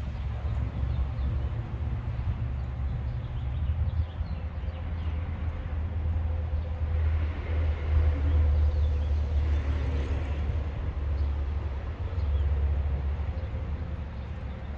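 Toyota Corolla running, a steady low rumble that swells slightly in the middle and again near the end.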